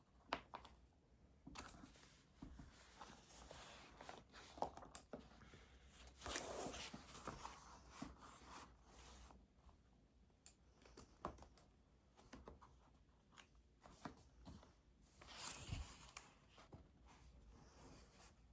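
Faint desk sounds of paperwork: scattered light taps and clicks, with two short rustles of paper being handled, one about six seconds in and one near the end.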